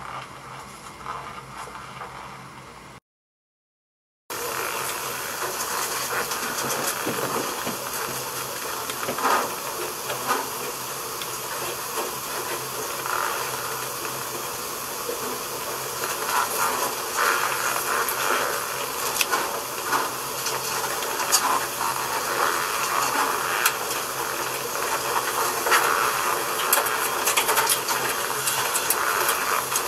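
Steady hiss with scattered small clicks and rustles, typical of a handheld camcorder's own noise and handling. It cuts out to silence for about a second near the start.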